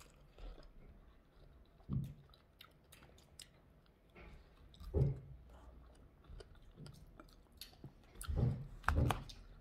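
Close-miked biting and chewing of fresh strawberries: soft, wet mouth noises with many small clicks, and a few louder bursts about two, five and nine seconds in.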